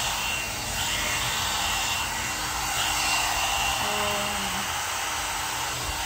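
One-step hot-air brush (hair dryer with built-in round brush) running as it is worked through wet hair: a steady blowing rush with a thin high whine.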